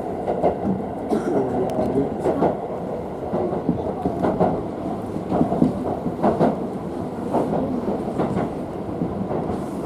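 Electric commuter train on the Tobu Skytree Line running along the track, heard from inside the carriage: a steady rumble with irregular clacks of the wheels over rail joints, about one a second.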